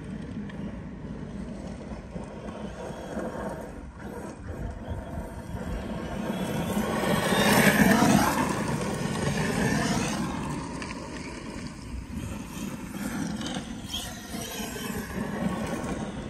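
Brushless electric 6S RC truck driving on loose gravel and dirt: motor whine and tyre noise build to a peak about halfway through as it passes close, the pitch sliding up and then down, then fade as it drives away.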